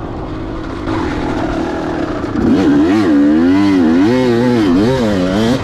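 2004 Kawasaki KX250 two-stroke single-cylinder engine being ridden, its pitch rising and falling as the throttle is worked on and off. The revving grows louder and more distinct a little over two seconds in.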